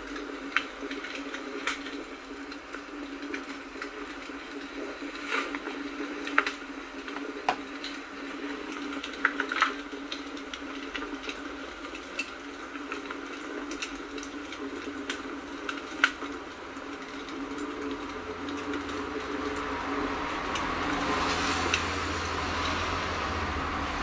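Wood fire crackling: a steady hiss with scattered sharp pops from the burning logs, the hiss growing louder near the end.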